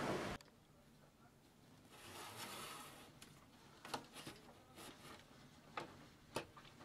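Light handling noises from hands working on a CRT television's main circuit board and its wire connectors: scattered sharp clicks and soft rustling, with a hiss swelling about two seconds in. A loud rushing noise cuts off abruptly just after the start.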